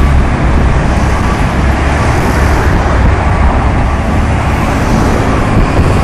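Mack dump truck's diesel engine running with a low, steady rumble close by, mixed with street traffic passing.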